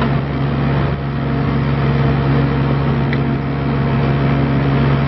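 Kubota diesel engine of a Bobcat 324 mini excavator running steadily at an even speed.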